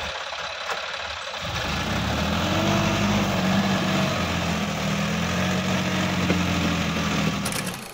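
Sonalika DI-50 RX tractor's diesel engine running hard under load as it pulls the tractor and its rotavator up out of a muddy paddy field onto a raised track. The engine note swells and rises slightly about two seconds in, holds steady, then cuts off near the end.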